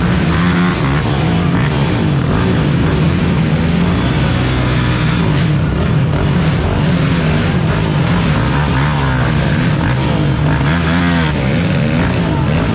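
Racing ATV engines running loud and hard, their pitch rising and falling again and again as the riders rev, shift and back off.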